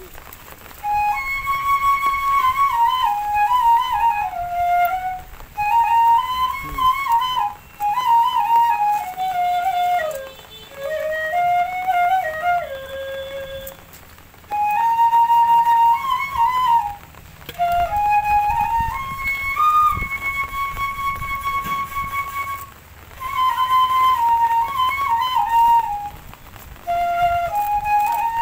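Background music: a solo flute melody played in phrases, with short pauses between them.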